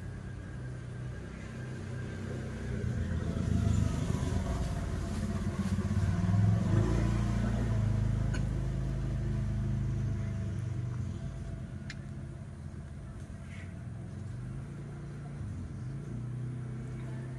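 Engine of a passing motor vehicle: a low hum that swells to its loudest around the middle, then fades away.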